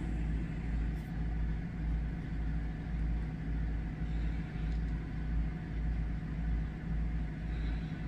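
A steady low rumble with a low hum, rising and falling gently in level.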